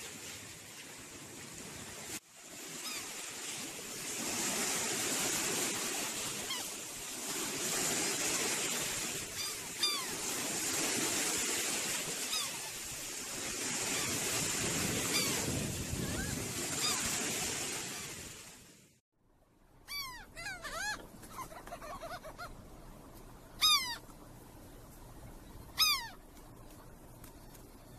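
Surf washing on a sandy beach, a steady rush with faint gull cries over it. The surf cuts off abruptly about nineteen seconds in, and a flock of gulls calls loudly overhead, sharp falling cries that come in clusters.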